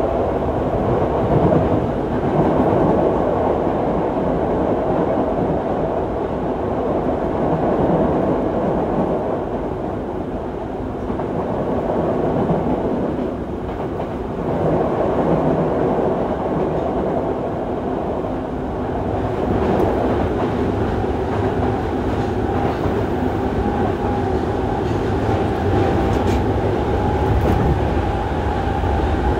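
Running sound inside a Yokohama Municipal Subway 3000A series car with Mitsubishi GTO-VVVF traction equipment: a continuous rumble of wheels on rail with faint steady tones over it, dipping briefly in loudness around the middle.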